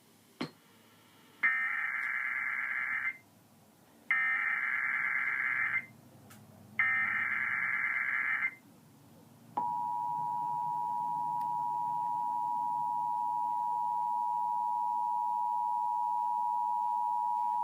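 Emergency Alert System tones: three harsh, screeching SAME digital header bursts of about two seconds each, which encode the alert, then about halfway through the steady two-tone EAS attention signal begins and holds.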